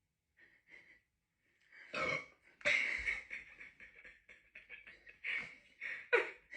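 A person burping after gulping a bottle of fizzy Sprite: a couple of loud burps about two seconds in, a string of shorter ones and breathy sounds after, and a sharp burp near the end.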